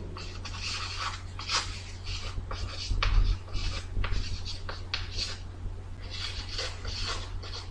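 Chalk scratching and tapping on a blackboard as words and figures are written out in short, irregular strokes, over a steady low hum.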